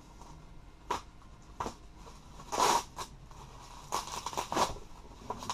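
Packaging being handled and pulled open: rustling and tearing, with a few short crackles and one louder tearing rasp about two and a half seconds in.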